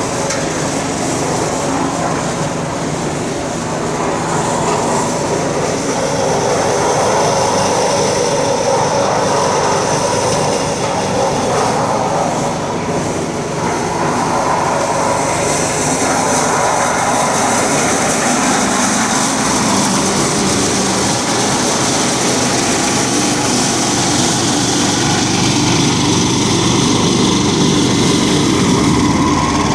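A concrete mixer's small gas engine runs steadily, having just started for the first time in 10 to 15 years. Its note changes a little past the middle.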